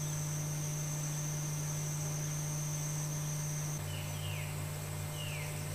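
Rainforest ambience: a steady high-pitched insect drone over a constant low hum. The drone stops about two-thirds of the way through, and short descending whistled calls begin, about one a second.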